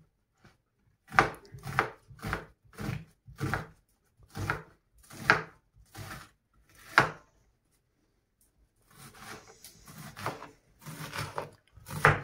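Kitchen knife chopping onion on a wooden cutting board. Separate knocks come about every half second, then there is a short pause, and near the end faster, closer chopping.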